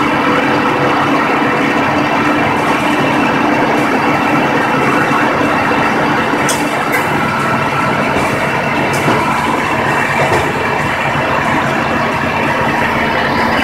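John Deere 6830 tractor's six-cylinder diesel engine running steadily, driving a McHale Fusion 3 baler-wrapper that is picking up grass, in a loud continuous mechanical din with a couple of brief clicks about halfway through.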